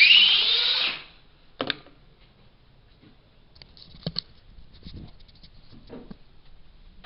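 A radio-controlled car's electric motor whining up in pitch over a loud rush of noise for about a second, followed by a sharp click and scattered faint clicks and taps.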